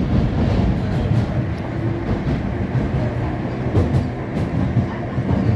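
London Underground Jubilee line 1996 stock train running, a steady rumble with a few faint clicks about two-thirds of the way through.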